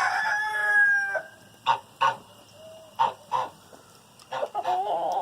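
A rooster crowing, the drawn-out end of the crow fading about a second in. Several short sharp clucks follow, then another drawn-out wavering chicken call near the end.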